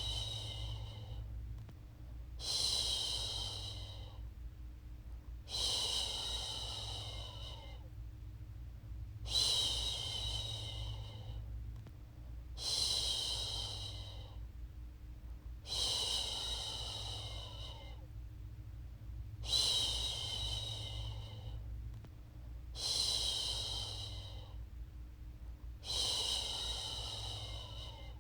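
A woman shushing to soothe a baby: a long "shhh" repeated about every three seconds, each one starting strong and fading away.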